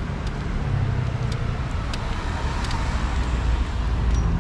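City road traffic: cars passing with a steady rumble of engines and tyres.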